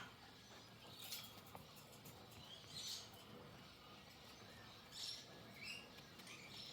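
Faint budgerigar chirps: a few short, high calls spaced a second or two apart, with a sharp click about a second in.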